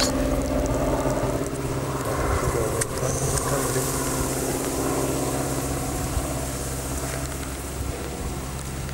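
Light aircraft engine droning steadily, growing slowly fainter.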